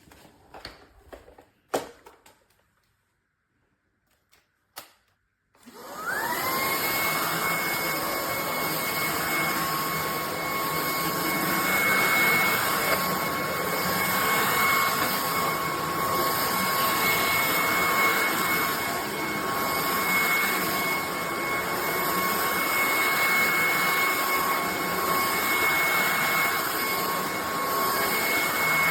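A few clicks and knocks, then about six seconds in a cordless Shark vacuum cleaner switches on. Its motor whine rises quickly and then runs steadily at a high pitch over the rush of suction.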